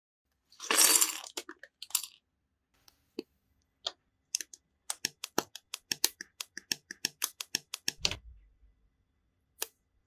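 Small plastic building bricks being handled and snapped together: a brief loud rattle of loose pieces just under a second in, then a quick run of sharp clicks, about three a second, as bricks are pressed onto a plate, with a heavier clunk near the end.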